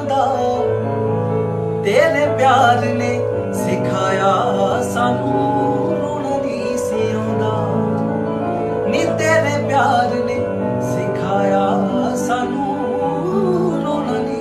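Music from a song: a melody line sung or played over long held chords, with a few sharp percussive hits.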